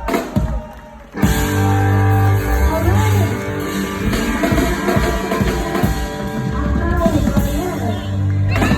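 Live band music with guitar to the fore and a steady bass line. The music drops away for about a second near the start, then comes back in full.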